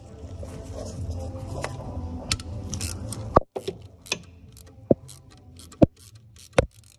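Hand ratchet with a short extension clicking as it undoes an alternator mounting bolt. Faint quick ticks sit under a low hum in the first half, then five sharp clicks come about a second apart.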